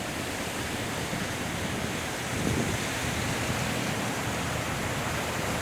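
Flash-flooded creek water rushing past in a steady, continuous roar of noise; the creek is out of its banks and still rising.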